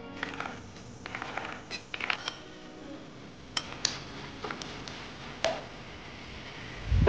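Kitchen handling sounds while making bean batter: soft wet handling noises and scattered clicks, then a few sharp metallic clinks of a stainless steel bowl being handled. A loud low thump comes right at the end.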